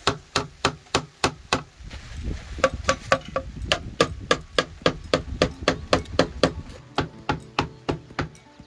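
Orange soft-faced mallet striking a bent aluminium strip on a truck's box body to straighten it: quick, even blows about three a second, with a short pause about two seconds in.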